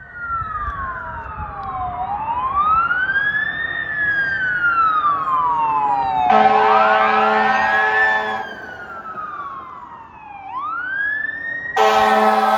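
Fire apparatus siren wailing, rising and falling in pitch every few seconds. An air horn joins with a blast of about two seconds around six seconds in, and sounds again near the end.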